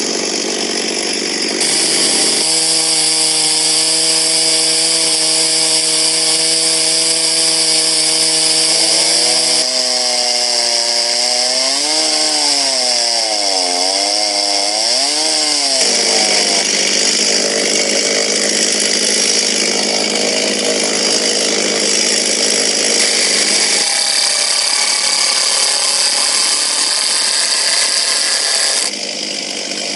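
Gasoline two-stroke chainsaw running hard while ripping lengthwise through a log in a chainsaw lumber mill. The engine note holds steady, then wavers up and down for several seconds about ten seconds in as the cut loads it, and steadies again. It eases off briefly near the end.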